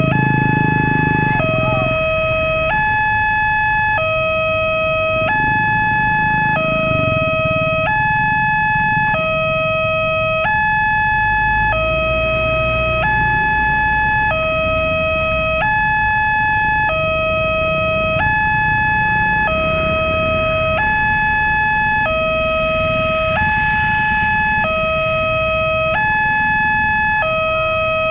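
Railway level-crossing warning siren sounding a two-tone hi-lo signal, switching between a higher and a lower tone about once a second without a break. It is the crossing's warning that a train is approaching and the barrier is closing. Low rumbling runs underneath.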